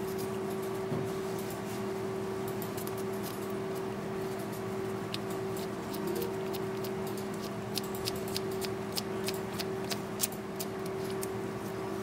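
Light metallic clicks and ticks from a latch-type contra-angle dental handpiece being handled and worked in gloved fingers, scattered at first and coming thick and fast in the second half, over a steady background hum.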